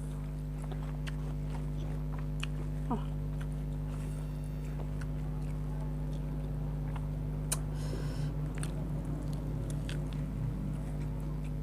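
Close-miked eating: a person chewing food, with small wet clicks of the mouth and a run of rhythmic chewing about eight seconds in. A steady low electrical hum underlies it throughout.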